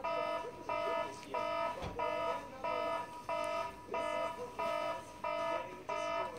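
An electronic alarm beeping over and over, about one and a half beeps a second, each beep several steady tones sounding together.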